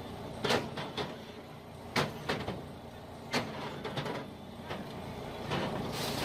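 A machine's engine running steadily, with a series of sharp knocks or clacks at irregular intervals over it.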